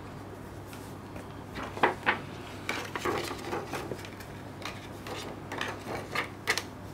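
Handling noise as a clear plastic sleeve is slid off a cardboard Blu-ray box: a string of plastic crinkles, rubs and sharp clicks, loudest about two seconds in and again near the end.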